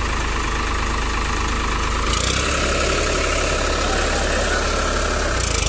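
Farmtrac 60 tractor's three-cylinder diesel engine running under throttle, getting louder and harsher about two seconds in.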